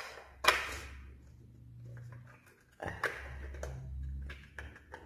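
A baby cot mobile's plastic battery-compartment cover is pressed into place, with a sharp click about half a second in. Quieter plastic handling knocks follow, with another click near three seconds.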